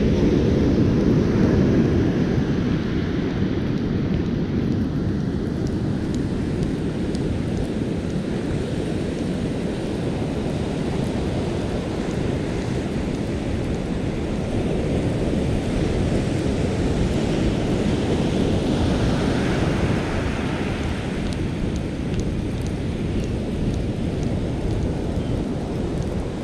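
Steady low rumble of wind buffeting the microphone over the wash of breaking ocean surf on a sandy beach.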